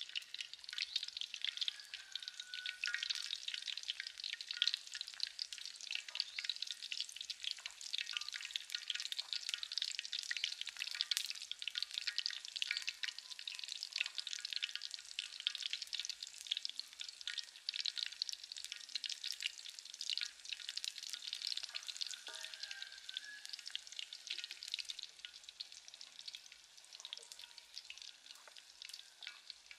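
Batter-coated chicken legs deep-frying in hot oil in a steel wok: a dense, steady crackling sizzle, easing off a little near the end.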